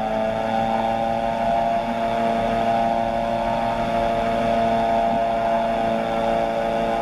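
Weight-shift ultralight trike's engine and pusher propeller running steadily at power in flight, an even engine hum with no change in pitch.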